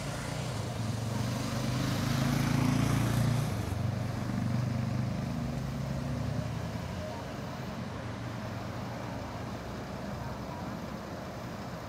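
AnsaldoBreda Sirio tram (ATM series 7100) running away along its track with a low hum. The hum swells about two seconds in and then fades as the tram recedes, over a steady wash of street traffic.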